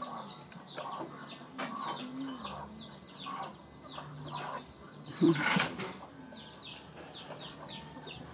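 Birds chirping rapidly, many short high downward-sweeping notes overlapping, with low clucking of chickens now and then and a louder call about five seconds in.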